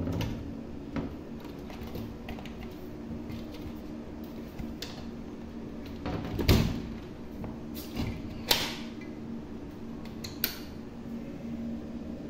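Scattered knocks, clicks and scrapes around a glass-doored cat enclosure, the loudest about six and a half seconds in and a sharp scrape about two seconds later, over a steady low hum.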